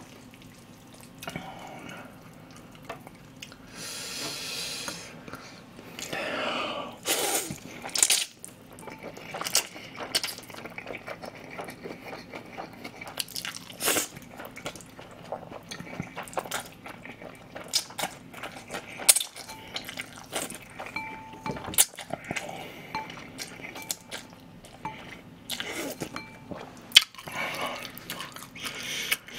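Close-miked eating of cold chewy jjolmyeon noodles topped with crispy fried bits: a few longer slurps of noodles, and wet chewing broken by many short sharp clicks and crunches.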